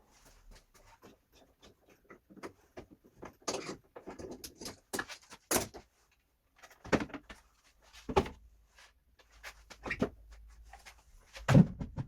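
Irregular clicks and knocks of tools and parts being handled and set down on a wooden workbench top, with several louder knocks and a short pause midway.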